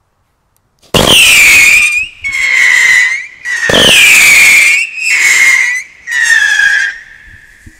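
Whistling fireworks: five loud shrill whistles one after another, starting about a second in, each about a second long and falling slightly in pitch. The first and third start with a sharp launch thump.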